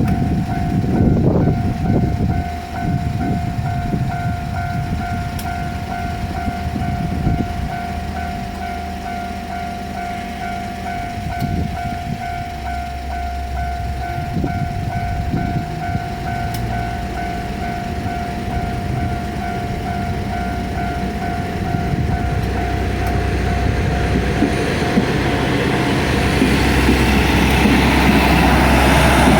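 Japanese level-crossing alarm dinging at about two strikes a second, stopping about 22 seconds in. A Kanto Railway diesel railcar then runs up to the crossing, its engine and wheel noise growing louder toward the end.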